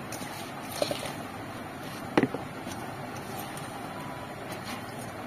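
Chopped spinach leaves being tipped and pressed down by hand into an aluminium pressure cooker, over a steady background noise. A light click comes about a second in and a sharp metal clink about two seconds in.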